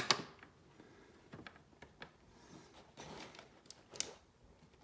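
Scattered light clicks and taps of small parts being handled by hand, with a sharp click right at the start and a few more around one and a half, three and four seconds in.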